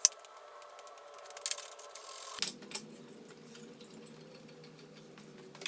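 Quiet workshop handling sounds: a sharp click, then a short scraping rub, then a few scattered light clicks and knocks as wood and a stop block are set up at a miter saw.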